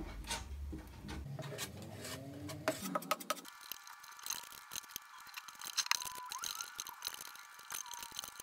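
Metal palette knife scraping and tapping as it spreads thick matte gel medium over a gessoed wooden panel: a run of soft, irregular scrapes and ticks.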